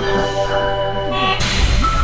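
Sendai Subway 1000 series train at a station stop. An electronic chime of steady stacked tones cuts off about a second and a half in with a sudden rush of noise, and the low rumble of the running gear starts with a steady high whine from the IGBT VVVF inverter as the train begins to pull away.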